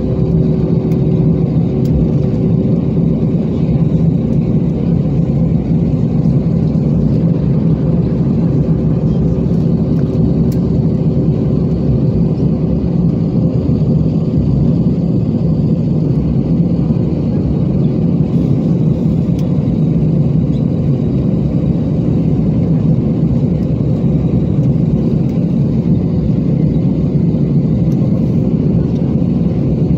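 Steady cabin noise of an Airbus A320 taxiing, heard from inside the cabin: the jet engines running at low power with an even, low hum and a few steady tones.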